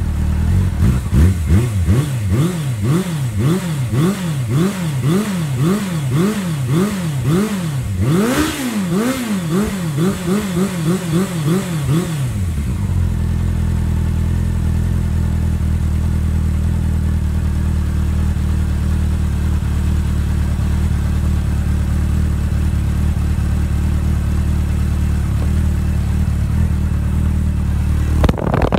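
Motorcycle exhaust through a Viper aftermarket race can with its baffle fitted. The throttle is blipped in quick revs, about two a second, for about twelve seconds, then the engine settles to a steady idle.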